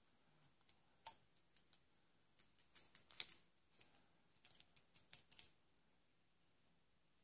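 Faint, scattered clicking of tiny plastic diamond-painting drills rattling in a plastic sorting tray as it is jiggled to settle them flat side down, starting about a second in and dying away after about five seconds.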